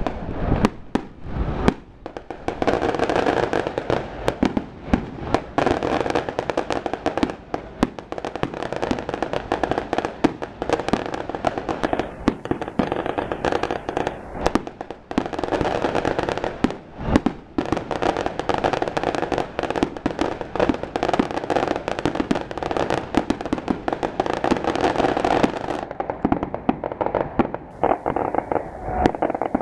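Fireworks and firecrackers going off in a dense, continuous barrage: rapid bangs and crackling without let-up, with a few louder single bangs standing out.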